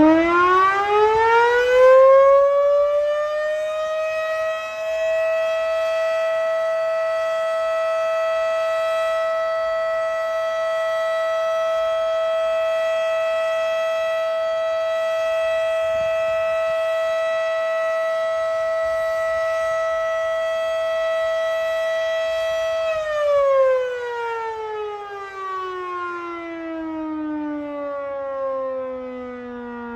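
Federal Signal Model 5 electromechanical civil defense siren sounding a steady alert test. It winds up to full pitch over the first few seconds and holds one steady tone for about twenty seconds. It then winds down, its pitch falling away to the end.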